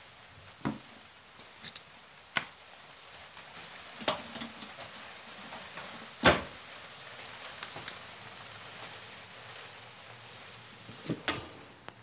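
Scattered knocks and clicks of a small DC motor and hand tools being picked up and set down on a hard tabletop, about six in all, the loudest a little past the middle and two quick ones near the end, over a steady background hiss.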